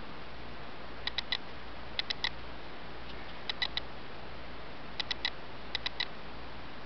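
Light clicks in quick groups of two or three, roughly once a second, over a steady background hiss.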